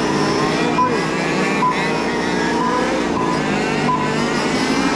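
Several large-scale radio-controlled F1 race cars running around the track, their motors whining and revving up and down over one another.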